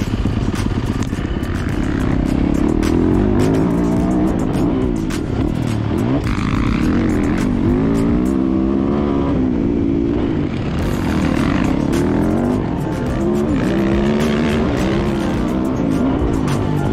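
Motocross dirt bike engine revving on the move, its pitch climbing and dropping back again and again as the bike accelerates and shifts, with music playing underneath.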